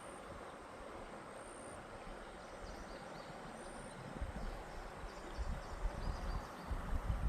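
Creek water flowing steadily past the kayak, with a few faint high bird calls. From about four seconds in, low gusts of wind buffet the microphone.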